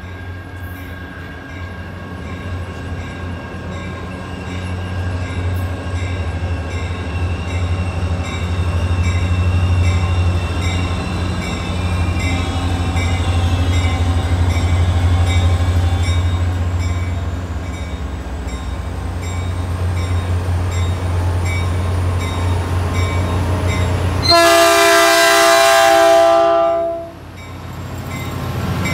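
Caltrain EMD F40PH diesel locomotive approaching, its engine growing steadily louder, then one loud blast of its multi-note air horn lasting about three seconds, cut off sharply, before the engine passes close by.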